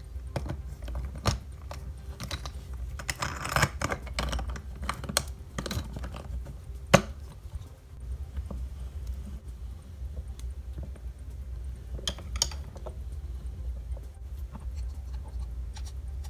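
Hard plastic playset pieces clicking, tapping and rattling as they are handled and pressed together, with one sharp click about seven seconds in, over a low steady hum.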